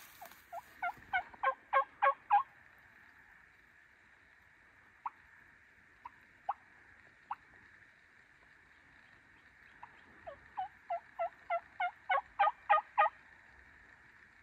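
Hen turkey yelps on a hand-held turkey call: a run of about eight yelps growing louder near the start, a few single yelps in the middle, then a longer run of about a dozen yelps building to the loudest near the end.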